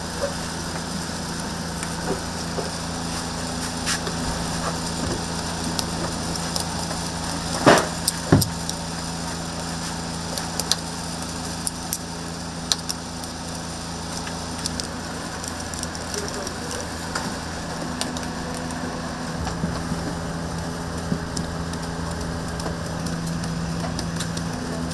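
Steady machine hum in a food-shop kitchen, with scattered crackling and small clicks throughout and two sharp knocks about eight seconds in.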